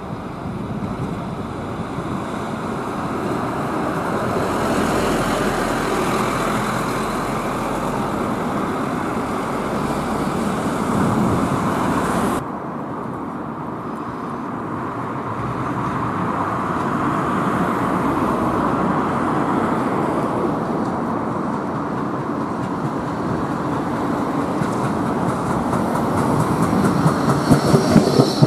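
A double-decker bus drives past on the road. Then, after a cut, a Bombardier Flexity 2 tram approaches on street track and passes close by, its running noise growing louder, with a few sharp clicks near the end as it goes past.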